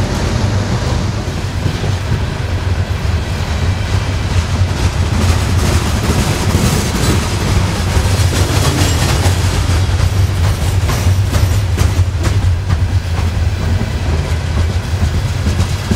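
A Norfolk Southern freight train of open-top hopper cars rolls past close by. Its wheels make a steady low rumble and a clickety-clack over the rail joints throughout.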